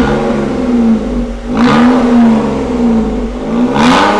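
Datsun redi-GO's 800 cc three-cylinder engine revved three times through an AZ Performance valvetronic exhaust, with its valve open and the centre filter removed, so a straight pipe runs from the header to the muffler. Each rev rises in pitch and then falls back toward idle.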